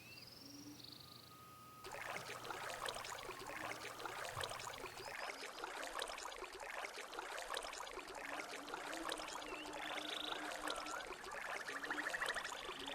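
Faint nature ambience: water trickling and splashing, with occasional bird chirps and trills on top. The water comes in about two seconds in.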